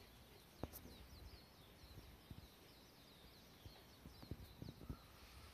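Near silence, with a faint bird chirping a quick run of short high notes, and a few soft knocks, one about half a second in and several near the end.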